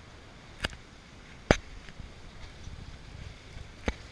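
Steady rush of wind and water past a sailboat beating upwind in rough water, broken by three sharp knocks, the loudest about a second and a half in.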